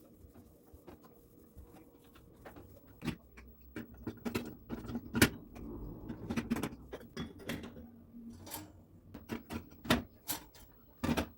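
Irregular clicks and knocks of household objects being handled and set down. They begin after a quiet first few seconds, and the sharpest knock comes a little past the middle.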